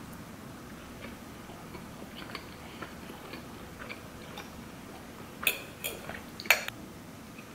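Soft chewing and small mouth clicks while eating a pupusa, then a metal fork clicking and scraping against a ceramic plate three times near the end, the last click the loudest.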